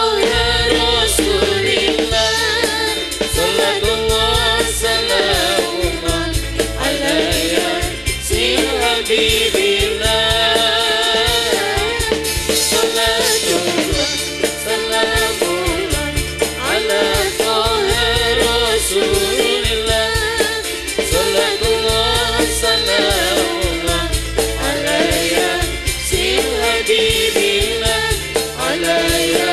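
Live band music: women singing together into microphones over frame drums (rebana), an electronic keyboard and a drum kit keeping a steady beat.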